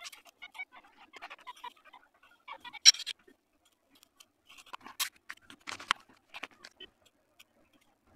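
Spatula spreading and scraping frosting on a cake in a steel pan, sped up four times: quick, irregular clicks and scrapes, with sharper taps about three seconds in and around five to six seconds in.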